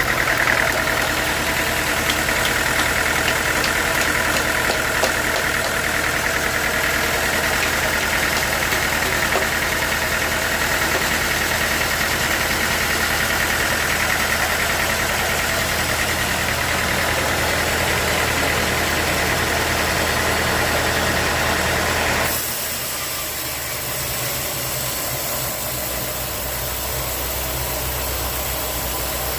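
Sawmill machinery running steadily with a loud, high-pitched band. About 22 seconds in it cuts off suddenly, leaving a quieter steady motor hum.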